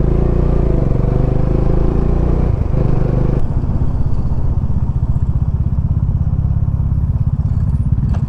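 Bajaj Dominar's single-cylinder engine running at low speed, its exhaust pulsing rapidly and evenly. The sound changes abruptly about three seconds in.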